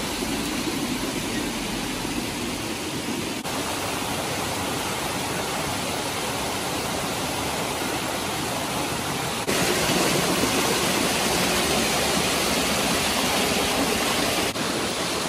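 Warm spring water of a hot spring waterfall cascading over rock into natural pools: a steady rushing of water that gets louder about nine and a half seconds in.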